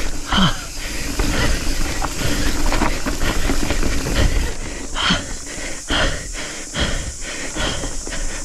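Ride down a dirt mountain-bike trail heard from the rider on a Nukeproof Scout 275 hardtail: wind rushing over the microphone and tyres on dirt, with frequent knocks and clatter from the rigid-rear bike over rough ground. The tired rider is breathing hard, in short sharp breaths from about five seconds in.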